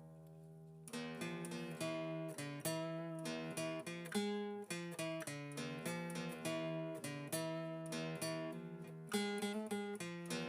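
Background music on acoustic guitar: a held chord fades out, then about a second in a run of plucked and strummed notes begins.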